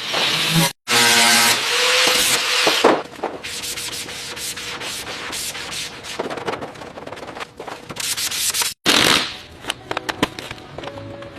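Workshop tool work in short edited cuts: a power tool running with a pitched whine over loud abrasive noise, then scraping and many short clicks and taps, and another brief loud burst of abrasive noise near the end.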